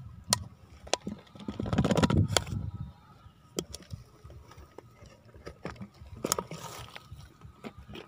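Plastic water bottle being handled close up, with sharp crackles and clicks scattered throughout and a louder rustling burst about two seconds in.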